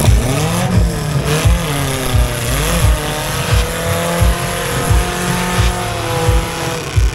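An off-road vehicle's engine revving, its pitch rising and falling several times before being held at a steady high note for a few seconds.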